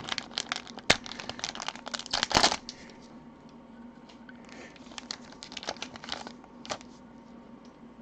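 Plastic packaging crinkling and crackling as a trading card is unwrapped by hand. The crackles come thick in the first few seconds, loudest about two and a half seconds in, then thin out to scattered crinkles.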